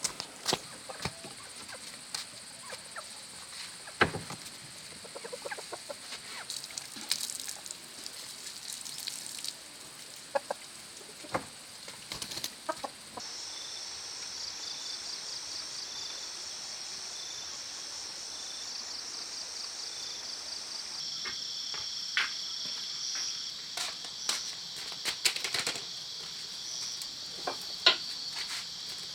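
Chickens clucking, with scattered clicks and rustles. From about halfway through, a steady high-pitched pulsing drone joins in.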